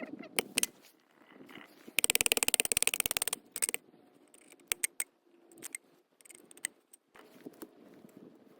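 Small gear being handled: scattered clicks and knocks, with a loud fast rattle of clicks for about a second, about two seconds in.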